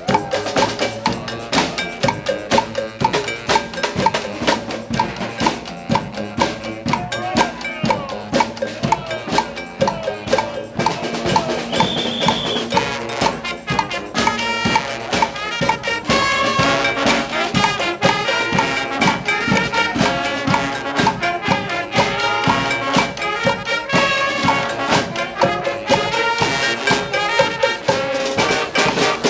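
Live brass-and-drum street band playing a funk tune, horns and trumpets over a steady drum beat.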